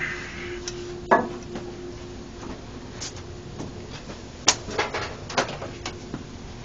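A series of sharp knocks and clatters, the loudest about a second in and another about four and a half seconds in, over a faint steady hum.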